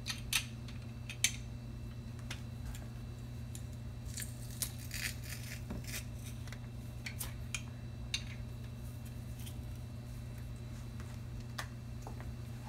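Sparse clicks and light scrapes of a metal garlic press as garlic is squeezed through it and scraped off onto fish fillets in a frying pan, with a small cluster of clicks in the middle. A steady low hum runs underneath.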